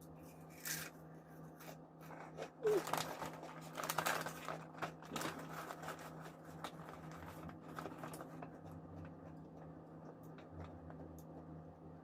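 Crunchy snack chips being bitten and chewed close to the microphone, a burst of loud crackly crunching a few seconds in, then softer intermittent chewing clicks.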